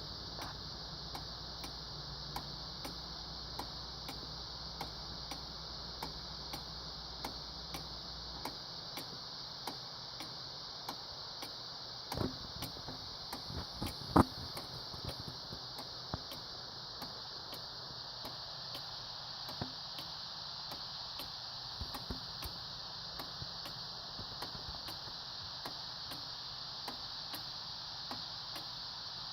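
An 1838 eight-day clock ticking at a steady, even beat, running again after refurbishment. Two louder knocks come a little before and after the middle.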